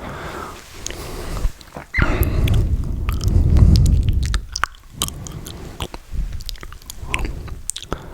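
Mouth sounds made right against a microphone: many sharp wet clicks and smacks of lips and tongue, with a louder, muffled stretch from about two seconds in to about four and a half seconds.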